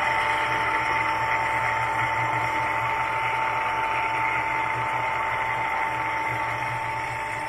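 SEMIRAL SM 45 radial drill running, its spindle motor and gearbox turning steadily with a constant whine over a low hum.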